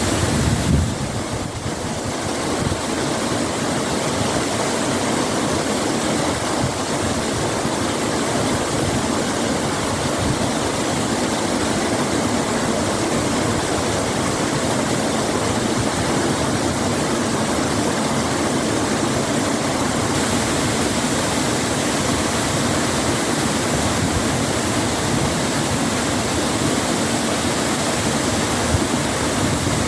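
Shën Gjergj waterfall: water falling and rushing in a loud, steady roar of white noise.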